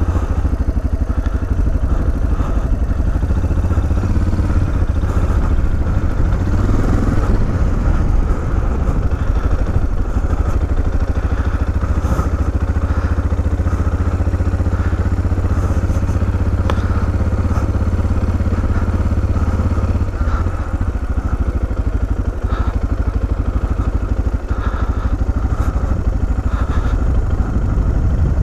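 Suzuki DR650's single-cylinder four-stroke engine running as the motorcycle is ridden slowly, with wind noise on the microphone.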